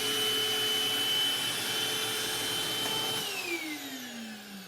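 Eureka Optima vacuum cleaner running with a steady high motor whine. About three seconds in it is switched off, and the whine falls in pitch as the motor spins down.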